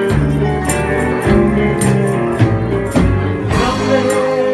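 Live band playing an instrumental passage: electric guitar over a steady bass line and a light cymbal beat, with a long held note starting about three and a half seconds in.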